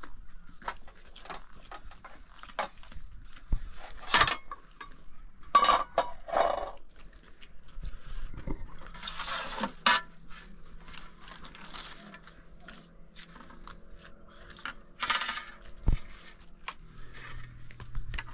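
Kitchen clatter of dishes and utensils: scattered clinks and knocks, with a few short scraping bursts about 4, 6, 9 and 15 seconds in.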